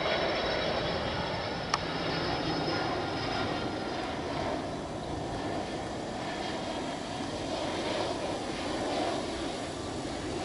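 Asiana Cargo twin-engine jet freighter passing low overhead on landing approach with its gear down: a steady jet engine rumble with a high fan whine that fades after a few seconds. There is a sharp click at the start and another about two seconds in.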